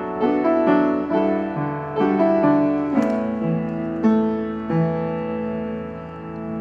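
Background piano music: a slow, gentle piece of struck notes and chords that ring and fade, ending on a long held chord that dies away.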